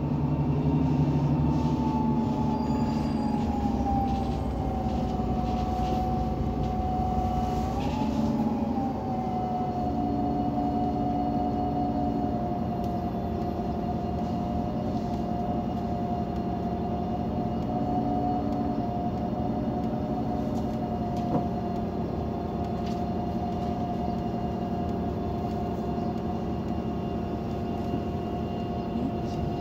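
Irisbus Citelis 18 articulated bus running on its natural-gas Iveco Cursor 8 engine: a low engine hum under a clear whine that drops in pitch over the first several seconds, then holds steady.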